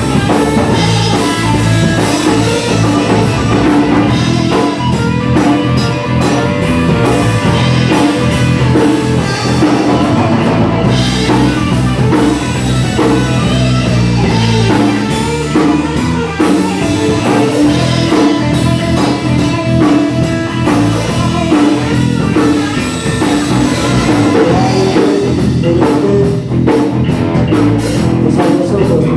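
Rock and roll band playing live, with guitar and drum kit keeping a steady driving beat.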